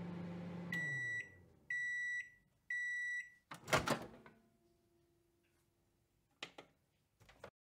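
Microwave oven finishing its cycle: the running hum winds down, then three high beeps about a second apart signal that it is done, followed by a loud clunk of the door being opened and a couple of short clicks near the end.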